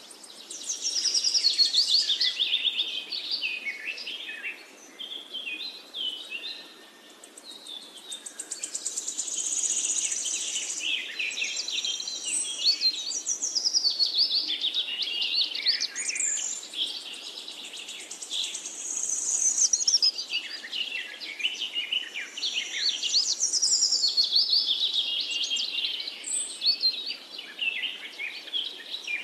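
Small birds chirping and singing, many quick high twittering calls overlapping with no break.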